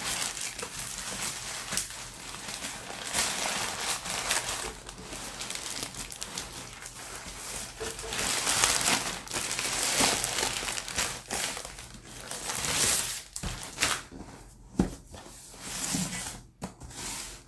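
Parcel packaging being torn open and crinkled by hand, an irregular rustling and ripping that thins out near the end, with a couple of sharp taps.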